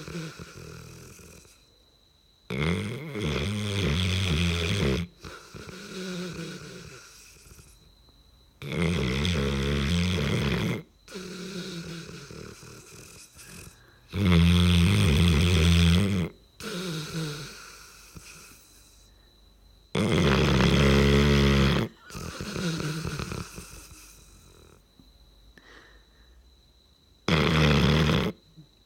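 A dog snoring loudly, five long snores about six seconds apart. Each snore lasts about two seconds and is followed by a quieter, fading breath.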